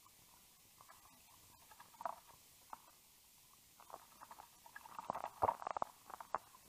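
Japanese thrush bathing in a shallow pool, flicking water with its wings: a few short splashes about two and four seconds in, then a quick run of louder splashes from about five seconds in.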